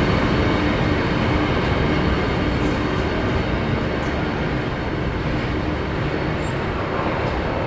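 Empty grain train of covered hopper cars rolling past, a steady rumble and rattle of wheels on rail that eases slightly toward the end.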